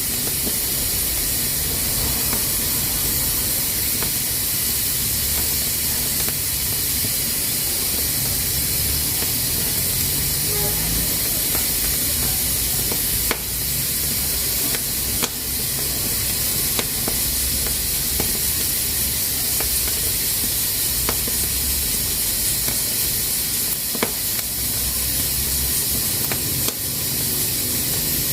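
Pressure cooker hissing steadily as steam escapes through its valve, with a few sharp clicks now and then.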